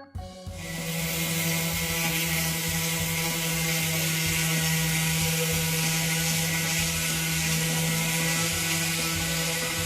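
A steady mechanical hum with a hiss over it, starting about half a second in and holding at one pitch.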